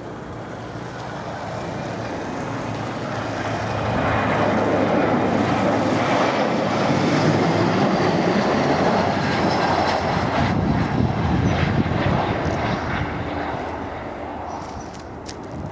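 Jet airliner passing low overhead on final approach to land, its engine and rushing air noise swelling to a loud peak for several seconds, then fading as it goes by.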